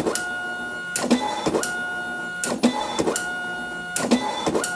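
Apple ImageWriter II dot matrix printer printing: the print head buzzes at a steady pitch across each pass, with a sharp clack between passes, about once a second.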